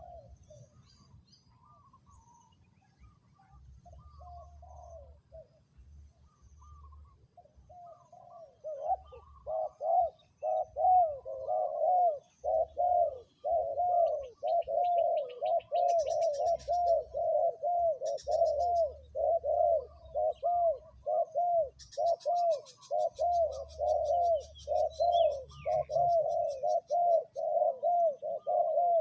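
Spotted dove cooing: soft, scattered coos at first, then from about eight seconds in a loud, fast, unbroken series of coos, about two a second. Higher, rapid chirping from small birds comes and goes above it.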